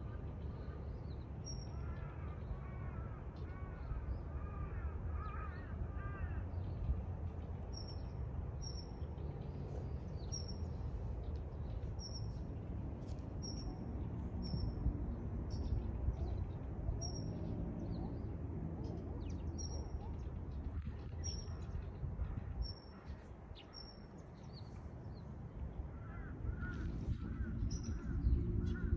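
Birds calling outdoors. A series of lower, arching calls comes in the first few seconds and again near the end, and a short high call repeats about once a second through the middle, over a steady low background rumble.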